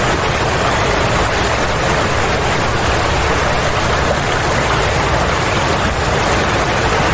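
Fast muddy floodwater rushing past in a loud, steady torrent of noise.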